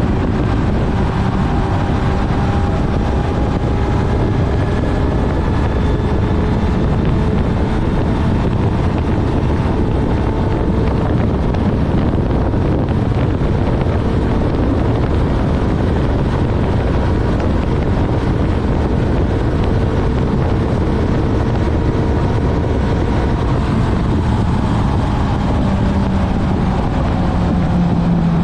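Honda CB1000R's inline-four engine running under way during a ride, its pitch drifting slowly up and down, with heavy wind rushing over the microphone. Near the end a deeper engine note comes in and falls in pitch.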